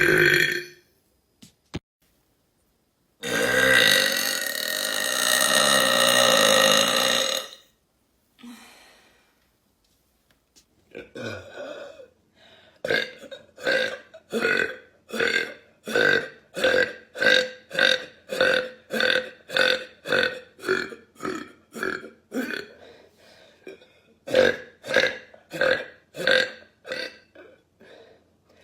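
A person burping: one long burp a few seconds in, then after a pause a long run of short burps, about two a second and evenly spaced.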